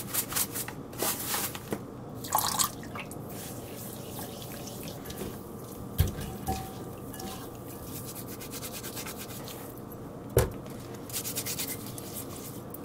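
Salt pouring from a box into a glass bowl with a fine granular rattle for the first couple of seconds, then hands rubbing a lemon in salt water in the bowl at a stainless steel sink. Two knocks, about six and ten seconds in.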